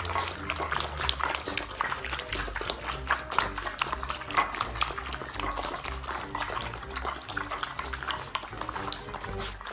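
Several puppies eating from bowls: a quick, busy run of wet lapping, slurping and chewing clicks.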